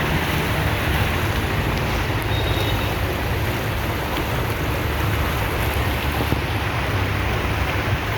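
Steady rushing noise with a deep low rumble and no clear separate events.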